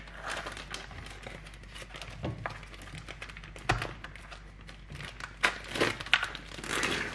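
Plastic film being peeled off a plastic food tray, crinkling and crackling irregularly, with a few sharper crackles in the second half.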